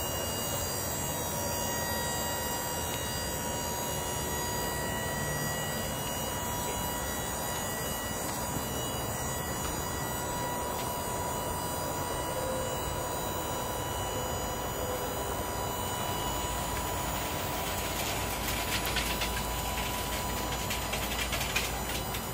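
A truck's hydraulic dump hoist running steadily as it raises a loaded-empty chip box, a continuous mechanical hum with a faint steady whine. Near the end a deeper rumble comes in, with a few clicks and rattles as the box nears full tilt.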